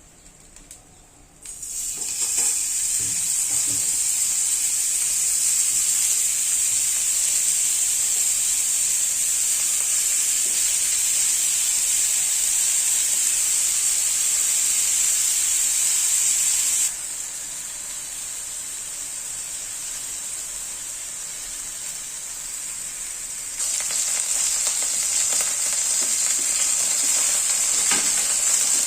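Beef burger patties sizzling as they fry in a pan. The sizzle starts about a second and a half in, turns quieter for several seconds in the middle, then comes back up.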